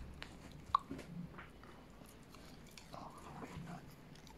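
Cocker spaniel biting and chewing a piece of meat: a few sharp clicks of its teeth in the first second and a half, then a run of softer chewing sounds about three seconds in.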